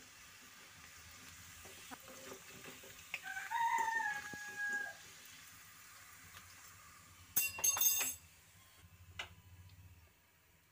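Hot oil sizzling as fried sukhiyan are lifted out with a metal spatula onto a wire strainer. A rooster crows once in the background about three seconds in, and metal clinks on the strainer about seven and a half seconds in.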